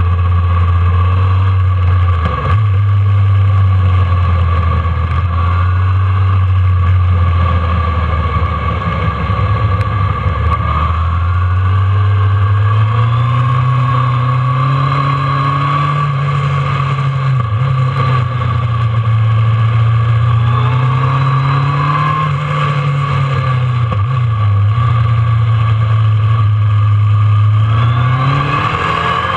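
Kawasaki ZRX1200's inline-four engine running under way at low to middling revs. Its pitch rises about twelve seconds in, wavers and dips briefly a little after twenty seconds, then climbs again near the end as the throttle is opened.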